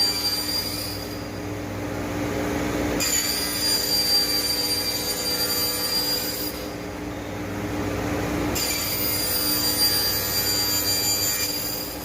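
CNC machine running, with a high-pitched whine that comes in for about three seconds and drops out for about two, over and over, above a steady lower hum.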